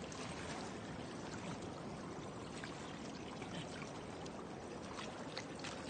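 Steady running water, a continuous pouring or trickling rush.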